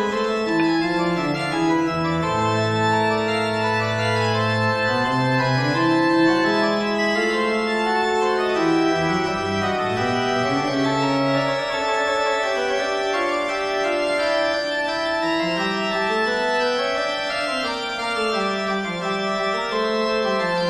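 Organ music: slow sustained chords that shift every second or two over a moving bass line.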